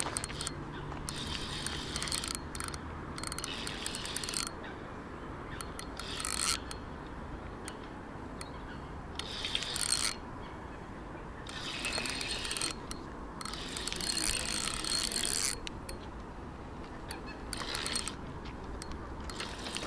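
Spinning reel's drag clicking in repeated bursts, about seven runs of rapid clicks a second or so long, as a hooked carp pulls line off the spool.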